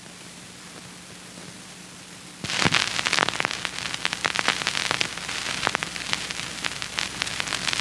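Steady hiss and low electrical hum, then from about two and a half seconds in a dense crackle of clicks and pops, like a record's surface noise just before the music begins.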